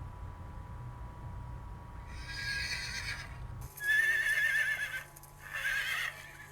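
Horse whinnying three times: a fainter call about two seconds in, then a loud, wavering whinny a little before the middle and another shortly before the end. A low rumble underlies the first half and cuts off just before the loud call.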